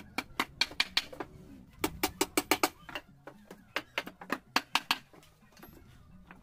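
Claw hammer striking a wooden jig frame: a quick run of sharp knocks, a short pause about three seconds in, then a second run that stops about a second before the end.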